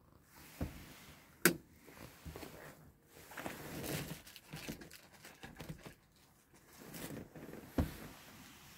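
Crinkly rustling in irregular stretches, with a few sharp clicks, the loudest about one and a half seconds in and another near the end.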